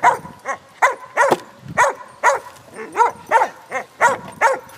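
A puppy barking over and over in short, high barks, about two or three a second.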